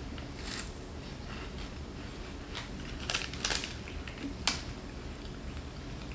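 Crisp taro wafer cookie being bitten and chewed: a few short, dry crunches, clustered a little after the middle, over a low steady room hum.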